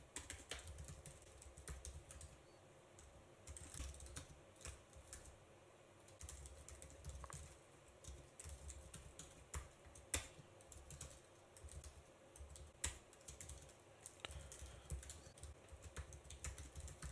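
Faint computer keyboard typing: irregular runs of key clicks with short pauses between them.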